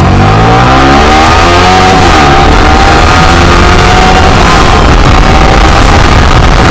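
Yamaha R15 V3's 155 cc single-cylinder engine pulling hard under full-throttle acceleration from a standing start. The pitch climbs quickly, drops at an upshift about two seconds in, then climbs again more slowly in the next gear.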